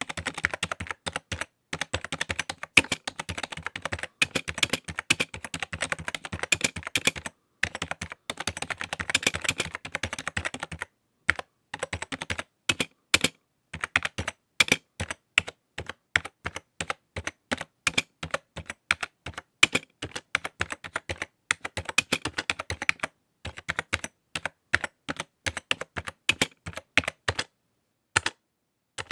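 Computer keyboard being typed on: quick runs of key clicks broken by short pauses, the longest near the end.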